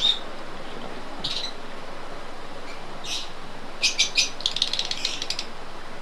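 Lovebirds giving shrill chirps: single calls about a second in and about three seconds in, then a quick run of rapid chirps from about four seconds to five and a half.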